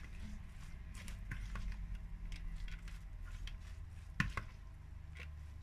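A utensil stirring a chopped prawn, lettuce and pineapple salad in a glass bowl: soft squishing of the wet pieces with scattered light taps against the glass, the sharpest pair about four seconds in.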